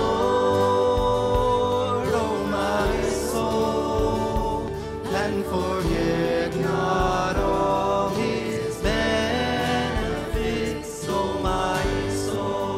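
Worship song: voices singing long held notes over instrumental accompaniment with sustained bass.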